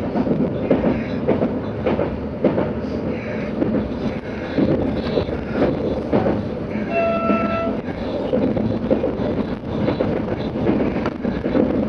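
Running noise inside the EPg electric multiple unit at speed: a steady rumble of wheels on the rails, broken by irregular short clicks. About seven seconds in, a single short horn tone sounds for under a second.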